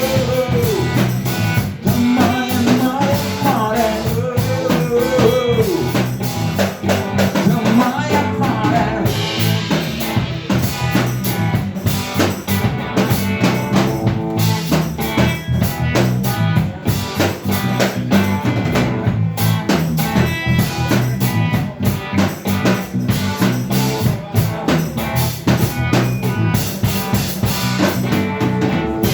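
Instrumental break of a rock song: a drum kit with snare rimshots and bass drum keeps a steady beat, with a melodic lead line gliding up and down over it during the first eight seconds or so.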